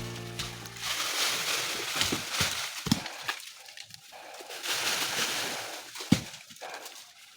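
Pigs eating feed, an irregular run of chewing and short clicking and knocking sounds. The tail of intro music fades out in the first second.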